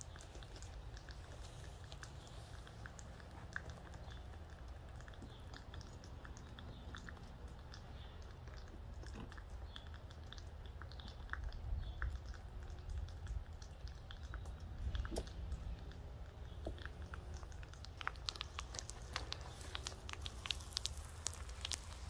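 Scattered clinks, scrapes and crackles of a steel stirring rod and tongs working a crucible in a propane melting furnace, over a low steady rumble. The clicking grows busier near the end as the glowing crucible is gripped and lifted out.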